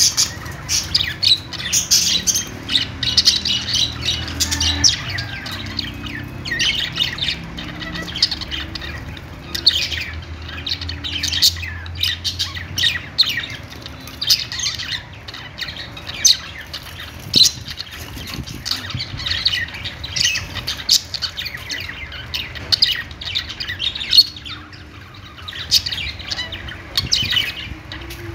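Budgerigars chirping and chattering, a continuous stream of short, quick chirps and squawks from several birds.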